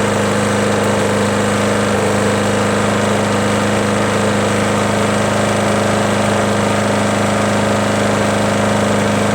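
Lawn mower engine running steadily at an even speed, with no change in pitch.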